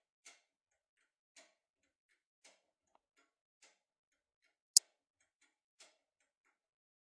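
Steel safe lockpick working the levers of a one-turn Chinese lever safe lock: light metallic clicks about once a second with smaller ticks between, and one sharp, much louder click just before the fifth second.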